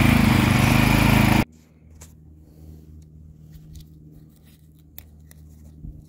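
Toro TimeCutter zero-turn riding mower's engine running steadily, cut off abruptly about a second and a half in. Then faint ticks and crinkles of a vinyl decal being peeled from its backing paper.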